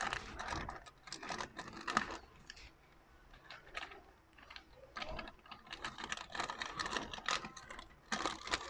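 Plastic milk sachet crinkling and crackling as it is squeezed and emptied into a metal ice cream canister, with light irregular clicks and scrapes.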